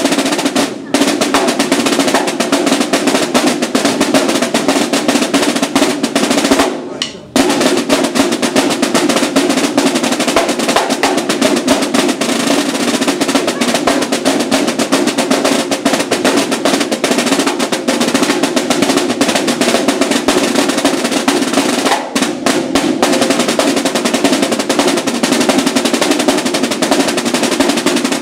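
Two Yamaha marching snare drums played together in fast, dense stick strokes and rolls. There is a short pause about seven seconds in and a few quick stops around twenty-two seconds.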